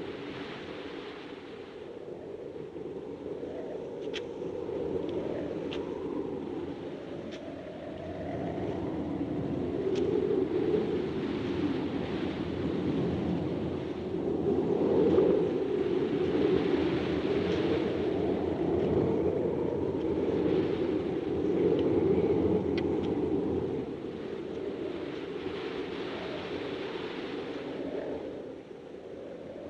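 Strong wind blowing across open grassland, a steady noise that swells and eases in long gusts, strongest about halfway through, with a few faint clicks.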